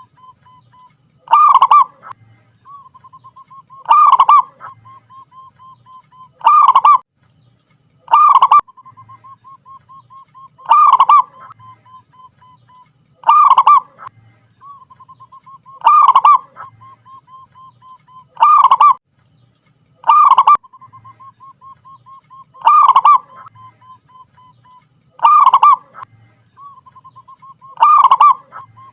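Zebra dove (perkutut) in full song: a soft, rapid run of even notes leading into a loud coo, repeated about every two and a half seconds.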